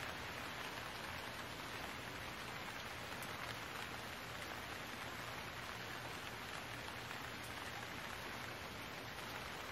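Steady hiss of rain falling, even throughout.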